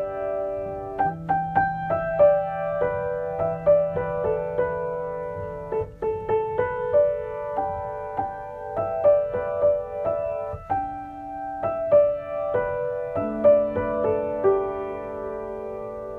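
Solo piano playing a gentle improvised melody, single notes struck over held low notes, ending on long sustained chords that ring out and fade.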